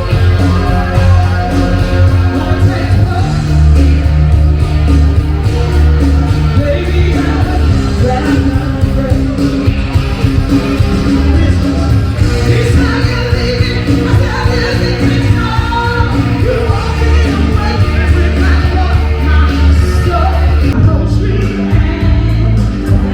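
Loud soul/R&B-style music with singing and a steady bass beat, played through a sound system in a large room.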